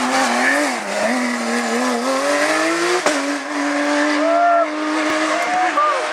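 Hillclimb race car engine running hard under load, its pitch climbing gently, with short tyre squeals and a sharp crack about three seconds in.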